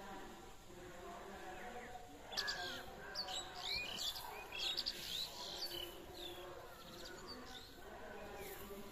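Small birds chirping, a quick run of short, sweeping high calls from about two and a half to six seconds in.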